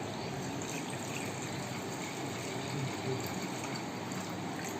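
Milk being poured from a packet into a pan, a steady gush of liquid.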